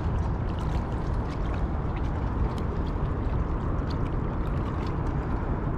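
Steady wind rumble buffeting the microphone, with river water lapping against the bank and a few faint small ticks scattered through it.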